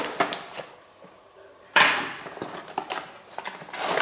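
Handling noise from a small cardboard box of tyre repair patches being opened and rummaged through: light clicks and rustling, with one louder scraping rustle about two seconds in.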